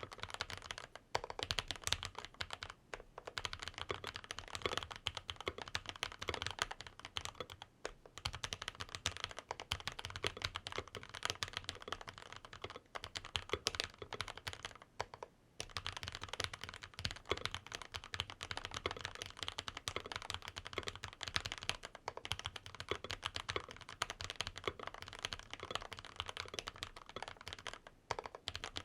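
Continuous fast typing on a mechanical keyboard with Gazzew Boba LT linear switches (long-pole stems), steel plate and PBT keycaps, a dense stream of deep, thocky keystrokes with a few short pauses.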